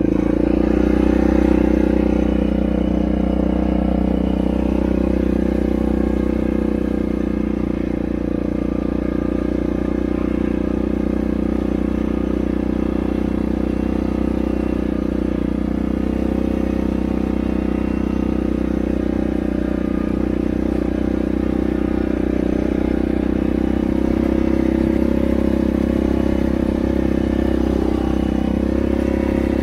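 ATV engine running steadily under way at an even, moderate throttle, a constant drone with little change in pitch.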